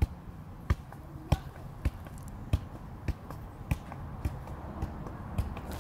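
Soccer ball being kept up with the feet and knees: a short thump on each touch, in a steady rhythm of a little under two a second, fainter in the second half.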